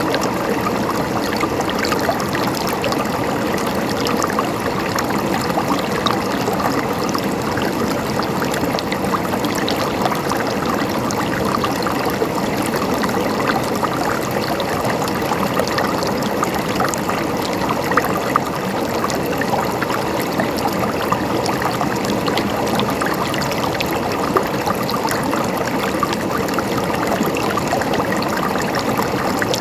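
Mountain stream running steadily over rocks, a continuous gurgling and trickling of water.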